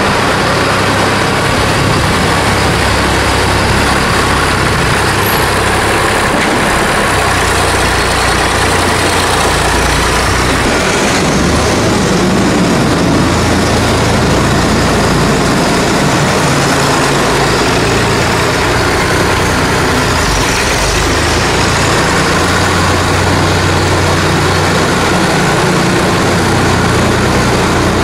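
Farm tractor engine running as the tractor drives over the concrete floor of a silage clamp, working a scraper blade over it, with a steady scraping noise under the engine.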